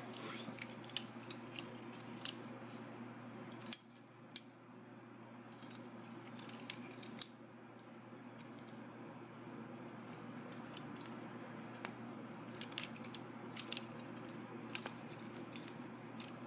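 Metallic clicks and clacks of an all-metal butterfly-knife-style comb being flipped open and shut by hand, coming in irregular bursts with short pauses between them.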